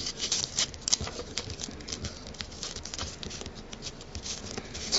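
Paper rustling and crackling in the hands as it is rolled into a tight tube, a fast, irregular run of small crinkles and ticks.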